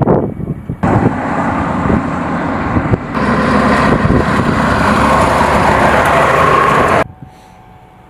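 Heavy military truck running, a loud steady engine and road rumble that grows fuller about three seconds in and cuts off abruptly about a second before the end.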